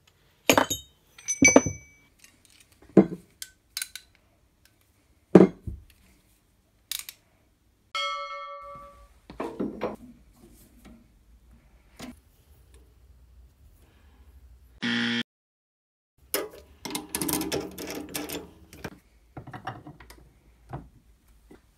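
Metal workshop handling sounds: a string of sharp clanks and knocks from steel bar stock and hand tools, a lathe chuck key in a three-jaw chuck and a round bar set into a bench vise. About eight seconds in a piece of metal rings briefly. Just before fifteen seconds there is a short loud buzz, and near seventeen seconds a stretch of scraping and rattling.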